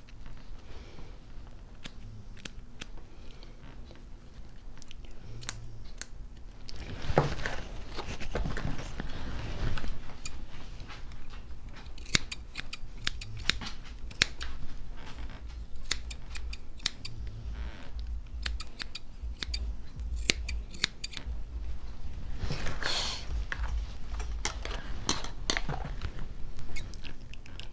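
Grooming scissors snipping the hair on a dog's foot: many short, sharp snips, some in quick runs. Two louder rustling stretches of handling come about a third of the way in and again near the end.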